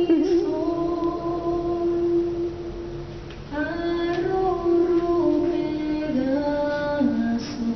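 A female voice singing a slow melody in long held notes, pausing briefly about three seconds in, then stepping down in pitch near the end.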